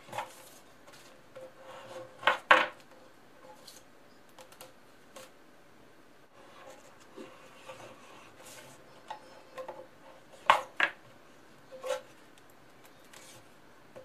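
Insulated copper wire being drawn through a homemade wooden wire-stripping block on a tabletop: light scraping and rubbing, broken by sharp clicks and knocks. The loudest come in a pair about two and a half seconds in and again about ten and a half seconds in, with another near twelve seconds.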